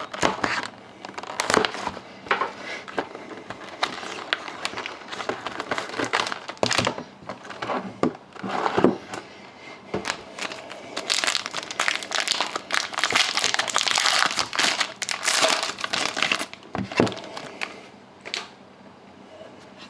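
Plastic wrapping crinkling and tearing as a box of hockey trading cards is unwrapped and opened: an irregular run of crackles, busiest in the middle and dying down near the end.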